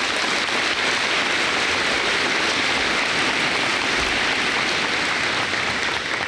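Large audience of students applauding, a dense steady clapping.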